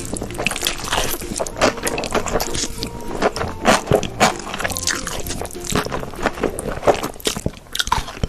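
ASMR eating sounds: rapid, irregular crunching and squishy chewing bites, over background music.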